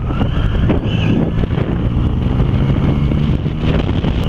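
Motorcycle engine running under way, with heavy wind noise over the microphone. The engine note holds steady and climbs slightly in the middle.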